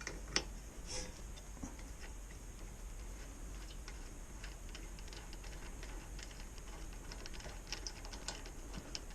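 Faint, irregular small clicks and taps of parts and tools being handled during mini bike assembly, with a sharper click about half a second in.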